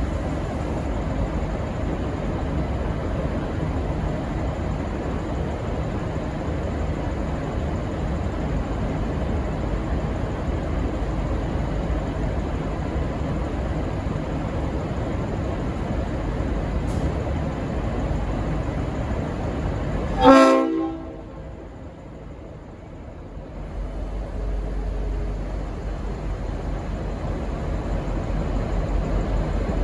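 V/Line N class diesel locomotive rumbling steadily, then one short, loud blast of its Leslie RS5T multi-chime horn about twenty seconds in. The sound drops away sharply after the blast, and the low engine rumble builds again over the last few seconds.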